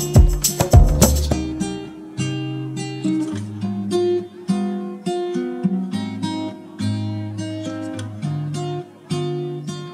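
Background music. A fuller, louder passage stops about a second in, leaving single plucked notes, guitar-like, in a slow melody.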